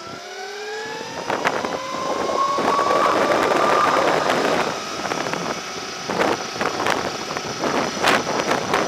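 Electric motorbike's motor whine rising steadily in pitch as it accelerates for about the first four seconds, then wind buffeting the microphone in gusts as speed holds.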